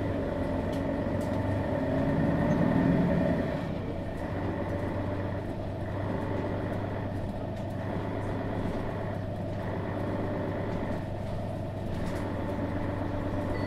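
Mercedes-Benz Citaro G articulated bus's Daimler OM 457 hLA diesel engine running. It pulls harder, rising in pitch, about two to three seconds in, eases off at about three and a half seconds, then runs steadily, with a faint thin whine throughout.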